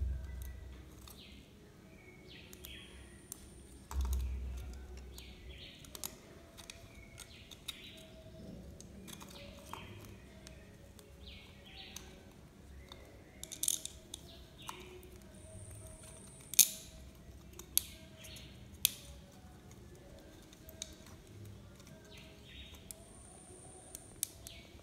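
Birds chirping on and off in short calls, with scattered sharp clicks and knocks. Two dull low thumps come at the start and about four seconds in, and the loudest click comes about two-thirds of the way through.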